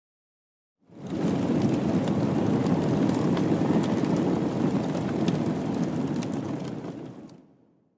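Explosion sound effect: a blast that sets in about a second in and carries on as a rumbling roar with crackles for about six seconds, fading out near the end.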